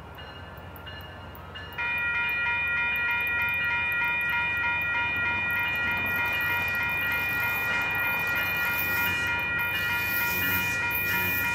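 Amtrak locomotive's multi-chime air horn sounding one long, steady chord that starts abruptly about two seconds in and holds on, over the low running noise of the departing passenger train.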